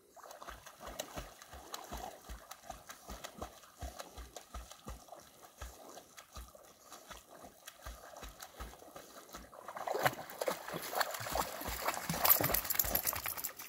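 Dogs moving through shallow lake water: a run of soft, regular thumps, then louder splashing and sloshing from about ten seconds in, loudest near the end.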